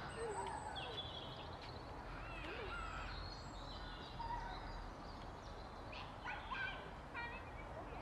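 Wild birds calling and singing: many short, quick whistled chirps overlapping throughout, over a low steady rumble.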